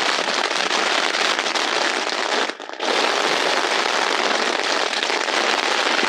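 Heavy rain pelting a nylon tent flysheet, heard from inside the tent as a dense, loud crackling patter that drops out for a moment about halfway through.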